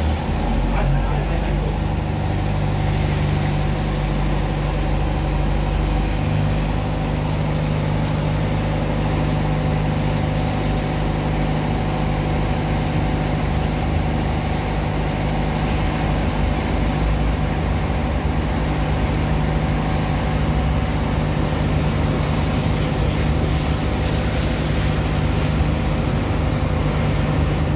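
Engine of a sand-pumping (drager) machine running steadily with a low hum, over the rush and splash of water slurry from the pump hoses as sand is washed out of a barge's hold.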